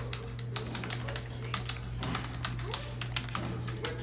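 Typing on a computer keyboard: irregular key clicks, a few a second, sparser in the first half-second. A steady low hum and faint television voices sit underneath.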